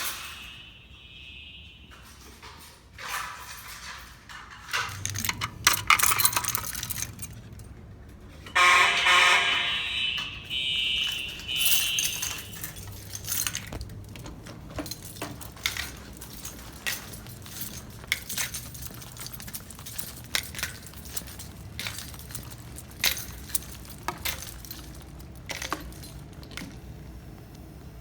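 Fire alarm horns sounding during a system test, in a few loud bursts that stop about twelve seconds in. After that come scattered light clicks and metallic clinks.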